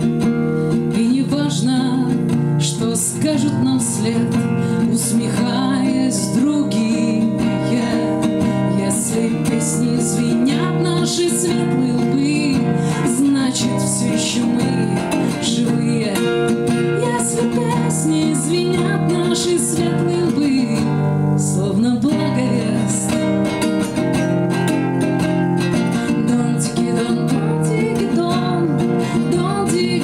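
A woman singing a Russian bard song to her own strummed acoustic guitar, performed live.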